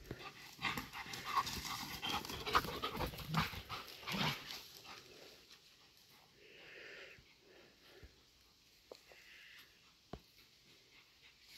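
An animal panting close to the microphone, dense and quick for the first four seconds or so, then a few softer breaths.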